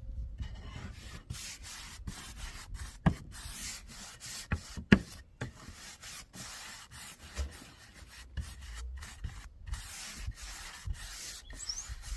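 Abrasive rubbing and sanding strokes in short runs that stop and start abruptly, with a couple of sharp knocks.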